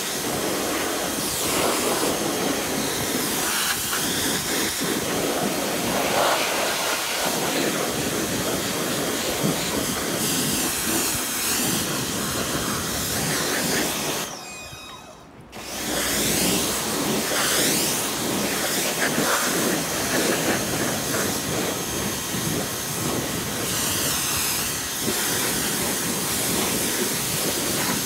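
Pressure washer spraying a jet of water onto a motorcycle to rinse it: a steady loud hiss that cuts out for about a second halfway through, then starts again.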